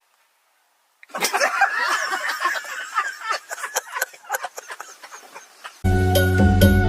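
Rapid high-pitched chirping and squeaking animal calls, many short calls crowding over one another and dying away. A loud backing track with a beat comes in near the end.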